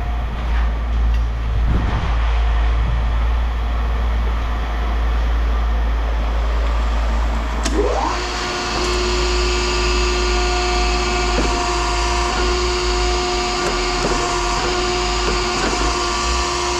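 A steady mechanical rumble and hiss. About eight seconds in, a motor whine rises in pitch and then holds at a steady pitch.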